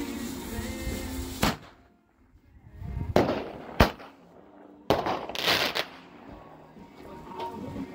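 Consumer fireworks being set off: three sharp bangs, about a second and a half in, near four seconds and near five seconds, with a rush of hiss just before the second bang and another just after the third.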